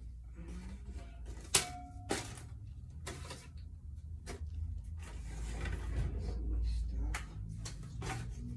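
Toiletries and packages being handled and set down on wire closet shelves and into a plastic basket: several sharp clacks, the loudest about one and a half seconds in, and a stretch of rustling packaging in the middle.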